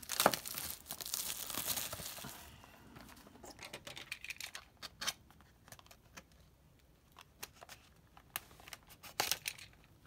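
Plastic shrink-wrap crinkling and tearing as it is pulled off a trading card box for the first couple of seconds, then scattered small clicks and scrapes as the box's seal is cut and the lid is lifted.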